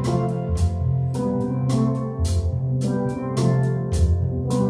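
Steel band playing: steel pans struck with rubber-tipped mallets give held, ringing chords over a moving deep bass-pan line, with sharp strikes on a steady beat.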